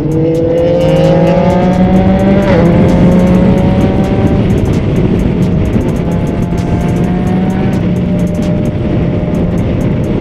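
Yamaha MT-09's inline three-cylinder engine through a Yoshimura R55 slip-on exhaust, accelerating under way: the pitch climbs, dips sharply at a gear change about two and a half seconds in, climbs again and settles, then rises once more near the end. Wind rushes over the microphone throughout.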